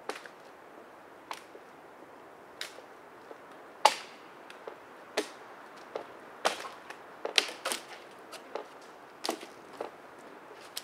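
Dry dead conifer branches and twigs being snapped by hand: about a dozen sharp, irregular cracks, the loudest about four seconds in and several close together a few seconds later.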